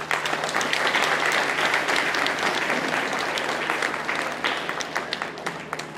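Audience applauding: a dense patter of many hands clapping that thins and fades out near the end.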